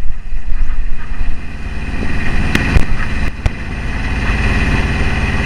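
Sailboat's Beta marine diesel inboard engine running steadily under way, a constant low rumble. A few sharp clicks come through about halfway through.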